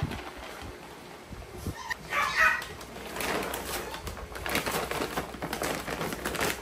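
A Shih Tzu gives a few short, high-pitched cries about two seconds in, followed by scattered light clicks and rustling.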